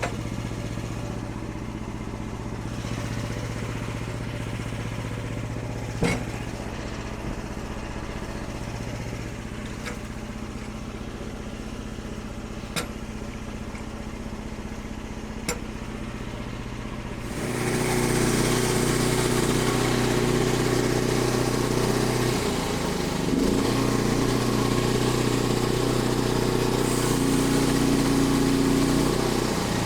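Small gasoline engine of a portable bandsaw mill running steadily at low speed, with a few sharp clicks, then throttled up about two-thirds of the way in and running louder and higher from there on.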